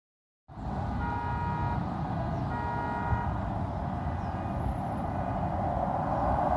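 Low rumble of a navy jet, growing louder near the end as it approaches. Two short horn toots sound over it, about a second in and again at about two and a half seconds.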